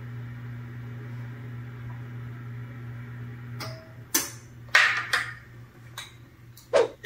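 A steady low mechanical hum, like an appliance or fan, fades out a little past halfway. It gives way to a few short knocks and clinks of kitchen items being handled at the counter, as an oil bottle is set down and the pan is handled.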